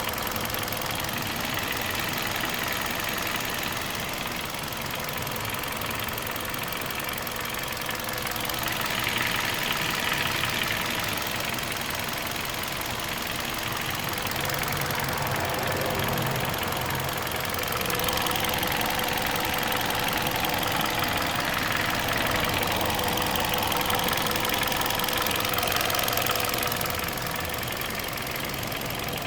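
2012 Hyundai Accent engine running with a rasping rattle, the noise whose cause the owner is asking about. It grows a little louder for a few seconds twice.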